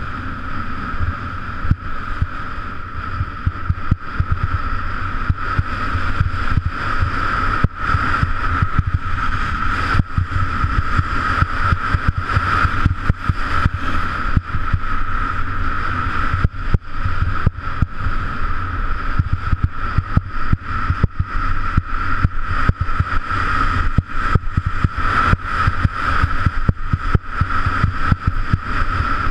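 Wind rushing over a GoPro action camera's microphone during a fast downhill ski run: a loud, low buffeting rumble with a steady high tone on top, broken by many brief dropouts.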